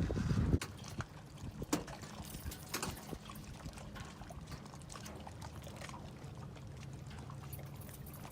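Water lapping and trickling around the boat, with a low steady rumble and a few faint clicks and knocks. A loud low rumble at the very start stops about half a second in.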